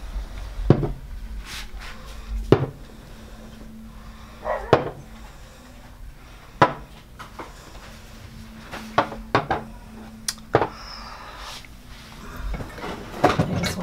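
Kitchen dishes being handled on a tabletop: scattered knocks and clinks as glass jars and ceramic bowls are picked up and set down, several close together toward the end, over a faint steady hum.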